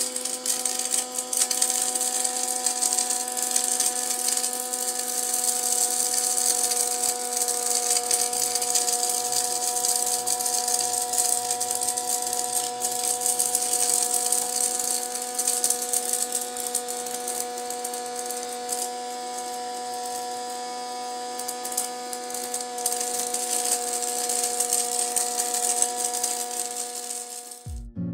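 Small electric motor and fan of a homemade plastic-bottle vacuum cleaner running at a steady speed, with a constant hum, an airy hiss and scattered light ticks. It cuts off suddenly near the end.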